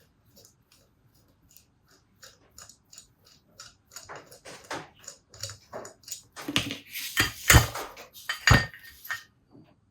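Small metal parts and hand tools clinking and knocking on a workbench. Light scattered clicks grow denser and louder, and the heaviest knocks come about three-quarters of the way through.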